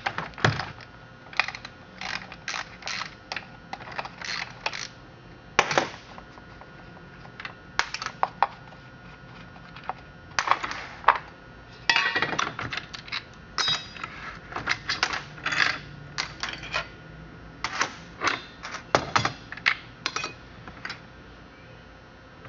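Irregular clicks, knocks and light clatter of a small vintage chainsaw being handled and turned over, its housing and chain knocking against the surface beneath.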